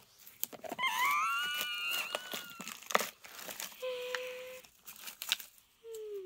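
Paper and cardboard scraps crinkling and rustling as a hand stirs and lifts them in a toy garbage truck's plastic hopper, with sharp plastic clicks, the loudest about three seconds in. Short pitched whines come in between: a wavering one about a second in, a brief hum near the middle and a dipping one near the end.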